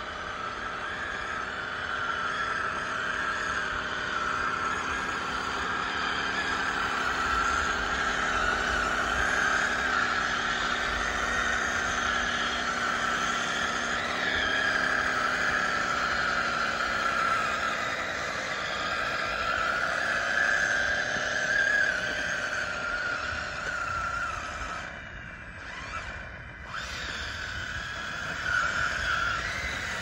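DXR2 radio-controlled model bulldozer running hard on loose gravel: a steady electric motor whine whose pitch sags and recovers partway through, with a brief drop-out about five seconds before the end.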